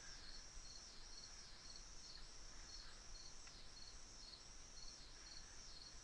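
Near silence: room tone with a faint high-pitched chirp repeating steadily about twice a second.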